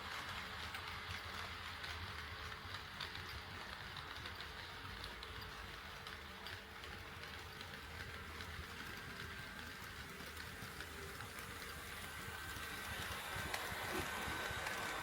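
HO scale model train running on KATO Unitrack: a steady rolling rumble with many faint clicks of wheels over the rail joints, growing louder near the end as the train comes closer.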